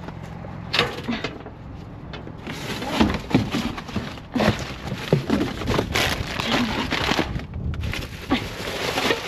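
Plastic trash bags and cardboard boxes rustling and crinkling as they are rummaged through by hand. A few sharp knocks come near the start, and a dense crackle of plastic takes over from a couple of seconds in.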